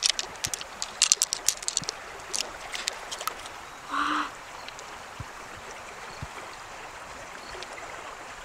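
Quick, sharp clicks over the first three seconds or so as fingers work through an opened freshwater mussel's wet flesh and pearls, over the steady rush of a shallow river. A brief tone sounds about four seconds in.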